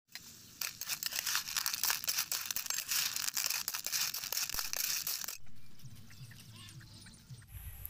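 Blood clams, oysters and holy basil sizzling and crackling in a frying pan over an open fire, with sharp clicks as a spatula stirs the shells. The sizzle cuts off suddenly about five seconds in, leaving a much quieter outdoor background with a few faint chirps.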